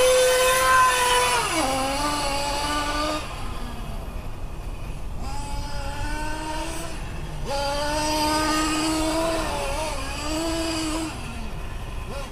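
Nitro 1/8-scale RC car's small two-stroke glow engine revving up and easing off again and again as the car is driven. A buzzing, whine-like engine note rises and falls with the throttle, with a quieter lull about a third of the way in.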